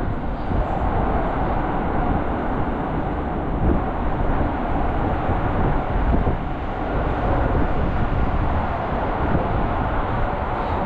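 Steady, loud city background noise with a heavy low rumble and no distinct events.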